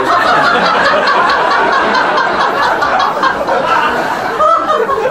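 Loud, continuous laughter that starts suddenly.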